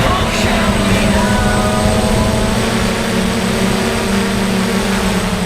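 DJI F450 quadcopter's electric motors and propellers buzzing steadily in flight, heard loud and close from the GoPro mounted on the frame.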